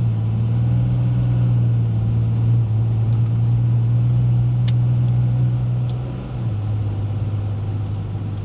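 Cummins turbo-diesel pickup engine pulling under throttle, a steady low drone that drops slightly in pitch and level about six seconds in. It is running smoothly on a freshly replaced fuel filter, which the owner takes to have fixed its rough running.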